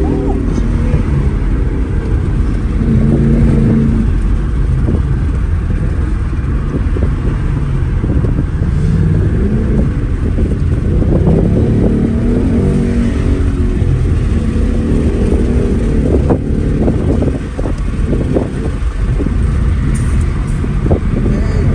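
Car engine running while driving, its revs rising and falling.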